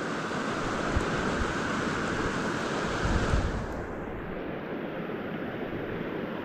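Steady rushing of a small creek waterfall spilling over rocks and logs. About three and a half seconds in, the upper hiss falls away and the water sounds duller.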